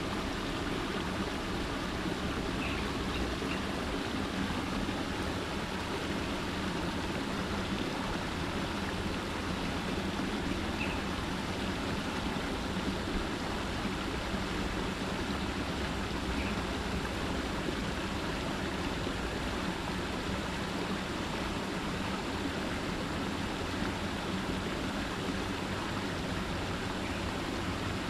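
Water pouring down a small rocky cascade into a pond, a steady splashing rush, with a few faint short chirps.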